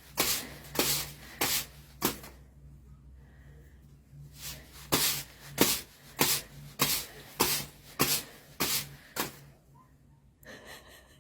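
Short rubbing or scraping strokes repeating in a steady rhythm, about two to three a second, in a short run and then a longer one after a pause of about two seconds, over a faint low hum.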